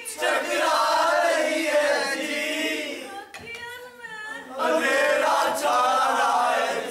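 A group of men singing together in unison, in two loud phrases with a short break a little after three seconds in.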